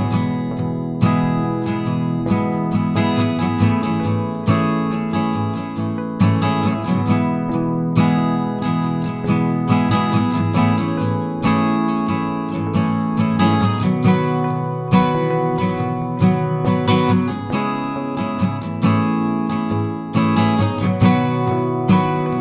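Background music: strummed and plucked acoustic guitar at a steady pace.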